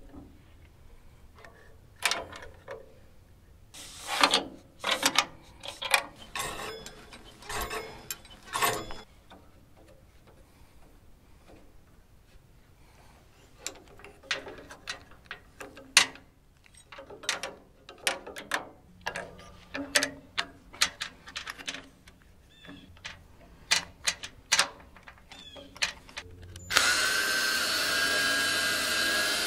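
Scattered clicks and knocks of metal parts and tools being handled at a sawmill's steel frame. Near the end a cordless drill starts and runs steadily with a whine, drilling at a mounting bracket.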